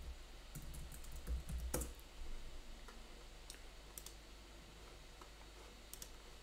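Faint, scattered clicks from a computer keyboard and mouse, over a low steady hum.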